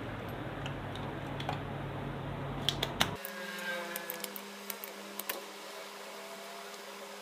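Sharp clicks and taps of desoldering work on a charger's circuit board, a soldering iron and a spring-loaded solder sucker pulling the MOSFETs, a few clicks in quick succession near the middle. Under the first half runs a steady low hum that cuts off abruptly about three seconds in.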